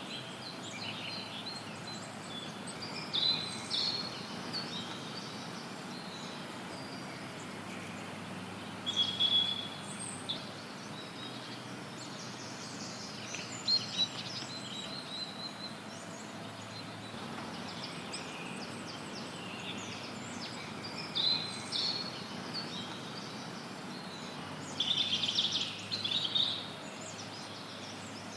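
Forest birds chirping and singing in short bouts every few seconds, high-pitched, over a steady hiss of added white noise.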